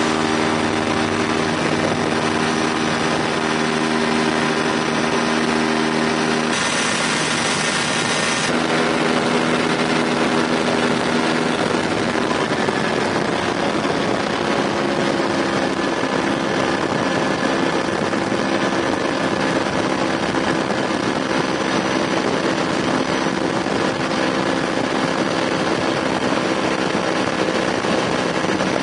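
Engine and propeller of a Tucano ultralight aircraft running steadily in flight, heard from on board. A burst of hiss lasts about two seconds some seven seconds in, and the engine's pitch shifts slightly around twelve seconds in.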